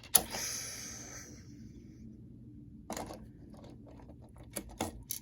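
Plastic Lego pieces being handled: a sharp click right at the start, then a brief rustling rattle that fades, and a few light clicks later on.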